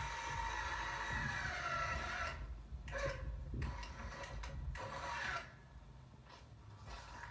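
Braun school-bus wheelchair lift folding its platform up to the stowed position: the lift's motor runs with a steady whine and metal rubbing, cuts out about two seconds in, then a few short squeaky bursts follow as the platform settles, and it goes quiet about five seconds in.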